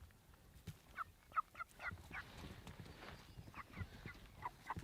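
Young chickens (pullets not yet laying) giving a string of short, faint peeping calls, starting about a second in and repeating irregularly.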